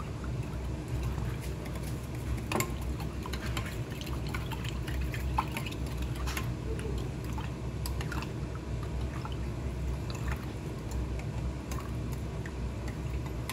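A wooden spoon stirring a thick soy-sauce seasoning sauce in a bowl: liquid sloshing, with scattered small clicks of the spoon against the bowl, over a steady low hum.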